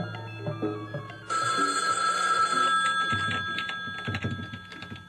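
Telephone bell ringing: one long ring starts about a second in, after a few low music notes die away.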